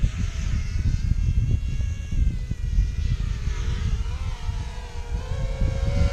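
Whine of FPV racing quadcopter motors and propellers, shifting up and down in pitch as the drones throttle through the course, over heavy wind buffeting on the microphone.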